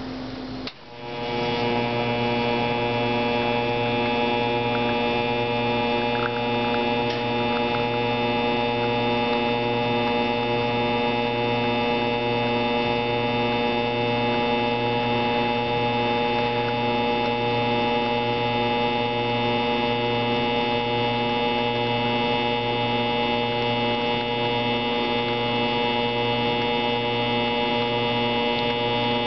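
Espresso machine's pump running while pulling a shot, a loud, steady hum that switches on about a second in.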